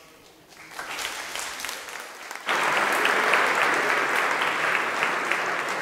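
Audience applause, starting faintly about half a second in and growing suddenly much louder about halfway through, with many individual claps.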